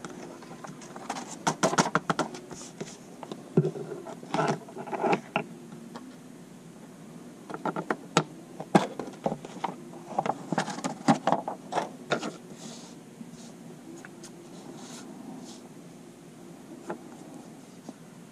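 Vellum and scrap paper being handled and tapped as gold embossing powder is shaken off: clusters of light taps and paper rustles for about the first twelve seconds, then much quieter handling.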